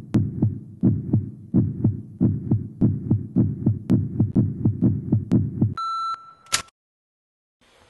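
Heartbeat sound effect: low thumps in quick pairs, beating steadily, that stop about six seconds in, followed by one short electronic beep like a heart monitor's and then silence.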